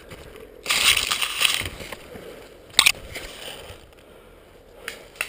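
About a second of rustling and crunching from brush and undergrowth being pushed through. Near the middle comes a single sharp crack, the loudest sound. A few faint snaps follow near the end.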